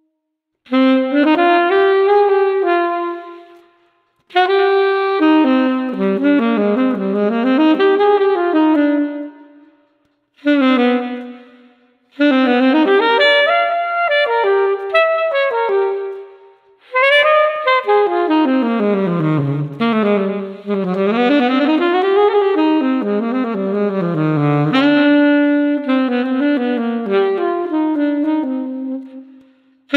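Solo saxophone playing an unaccompanied melody in several phrases, with brief silences between them.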